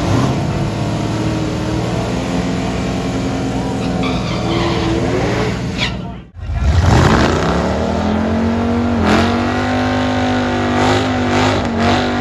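Drag car engines running. The sound cuts out abruptly about six seconds in, then an engine revs up quickly and holds a steady high rev.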